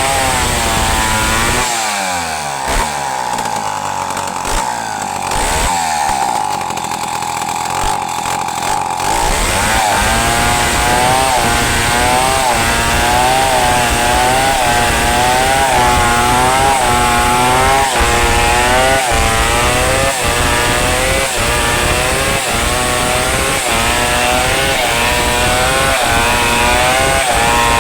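Two-stroke chainsaw cutting pulai wood. It runs at a steady high rev for the first several seconds, then from about ten seconds in its engine speed rises and falls about once a second as the chain works through the log.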